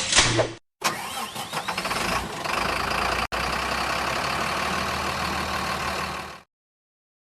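Dubbed-in truck engine sound effect for a boom truck crane: the engine cranks and starts, then runs steadily. It cuts off abruptly a little after six seconds in, with a split-second dropout about three seconds in.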